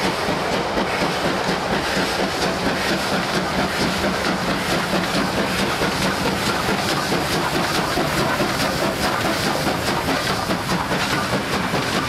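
Bavarian S 3/6 four-cylinder compound express steam locomotive passing close at speed with a train: fast, even exhaust beats over the rumble and clatter of wheels on rail. It gives four beats per wheel turn; only two of its four cylinders are heard, the others running silently.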